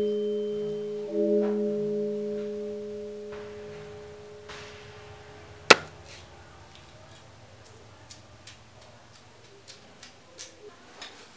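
A cleaver chopping shallots on a round wooden chopping block: one sharp chop a little past five seconds in, the loudest sound, then lighter scattered chops and taps. Over the first four seconds a held musical chord sounds, struck again about a second in, and fades out.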